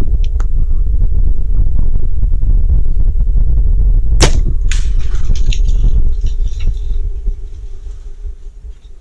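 A compound bow is shot about four seconds in: one sharp snap of the released string, a second sharp crack about half a second later, then a couple of seconds of scattered crackling. A steady low rumble runs underneath throughout.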